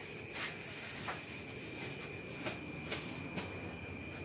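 Night insects trilling steadily at one high pitch, with a few faint knocks scattered through.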